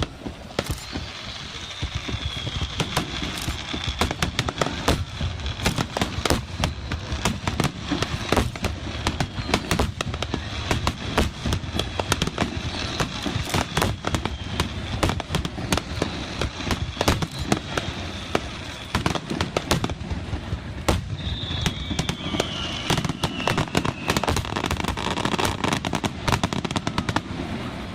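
Aerial fireworks display: a dense, continuous barrage of bangs and crackles. A faint high whistle falls in pitch about a second in, and another comes near the end.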